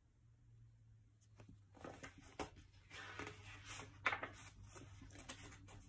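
Paper pages of a paperback book rustling and flapping as they are leafed through, with soft handling clicks; faint, starting about a second and a half in, with one sharper click about four seconds in.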